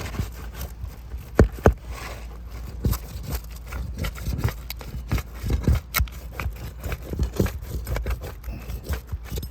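Brittle asphalt roof shingles being pried and torn apart where they have stuck together: a run of scraping, cracking and clicking, with two sharp knocks about a second and a half in.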